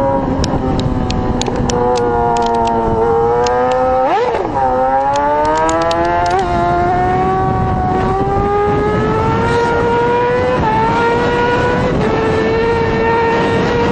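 Sport motorcycle engine running hard at highway speed, its pitch climbing slowly as it pulls, with a brief rev spike about four seconds in. Heavy wind rush from the speed runs underneath.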